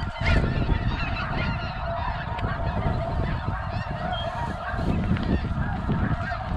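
A large flock of snow geese calling overhead: a dense, continuous chorus of overlapping honks and yelps, over a low wind rumble on the microphone.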